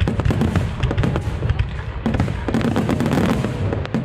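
Dense fireworks barrage: aerial shells bursting with rapid, overlapping bangs and the crackle of glittering crackling stars.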